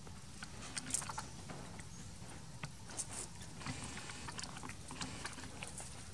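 Outdoor ambience: a steady low rumble with many small, irregular clicks and rustles scattered through it.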